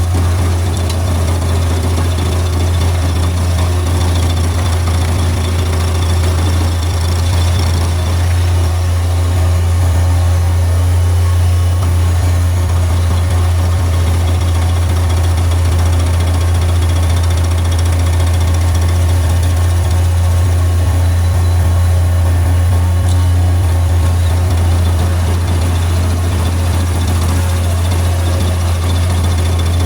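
Bobcat MT100 mini skid steer's engine running steadily, driving a Bobcat SG30 stump grinder grinding down a stump; a loud, even low drone.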